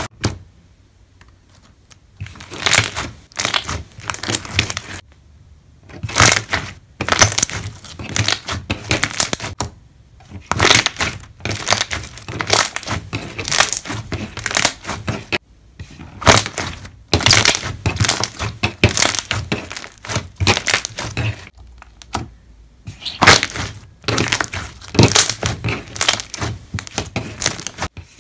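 Slime pressed and squished by hand, its trapped air bubbles popping and crackling in bursts of a second or two separated by short pauses.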